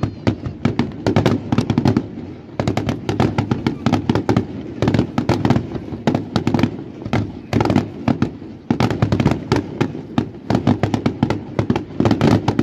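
Aerial fireworks shells bursting in rapid succession: a dense stream of overlapping sharp bangs and crackles, easing briefly about two seconds in and again near nine seconds.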